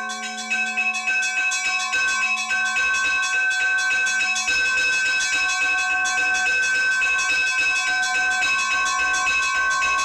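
Church bells rung by hand in the belfry: quick, even strokes, about four a second, with several bell tones ringing on and overlapping. A low hum from a larger bell dies away about halfway through.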